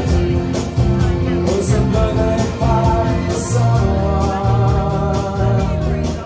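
A live acoustic band playing a song: strummed acoustic guitars and piano accordion over a steady drum-kit beat, with long held melody notes.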